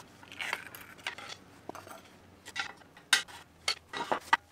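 Metal parts clinking and knocking as a Porsche spring plate and torsion bar are handled and fitted against the rear torsion tube: a string of sharp irregular clanks, the loudest a little past three seconds in.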